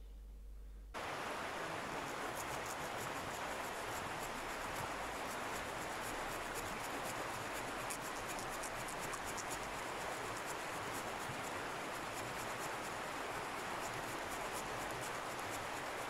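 Jigsaw blade fitted in a Leatherman Surge multitool sawing a thin tree branch by hand: a continuous scratchy rasp that starts about a second in.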